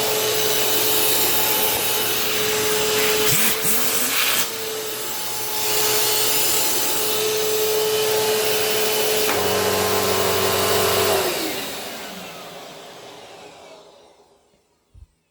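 Kenmore Progressive upright vacuum cleaner running steadily while vacuuming. About eleven seconds in it is switched off and the motor winds down, its hum falling away over a few seconds, with a faint knock near the end.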